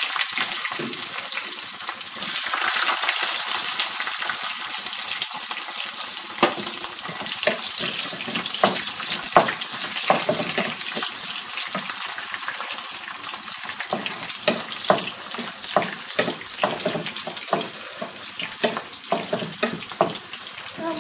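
Garlic frying in hot oil in a nonstick pan, with a steady sizzle. From about a third of the way in, a wooden spatula stirs it, its knocks and scrapes on the pan heard as sharp clicks.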